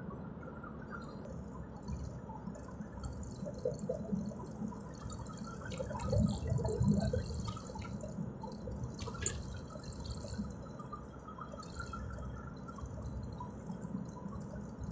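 Steady low rumble of a vehicle driving along a paved road, with scattered small clicks and rattles, a little louder about six to seven seconds in.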